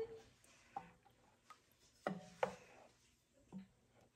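A few faint, scattered knocks of a stirring utensil against a cooking pot as rennet is gently worked into warm milk.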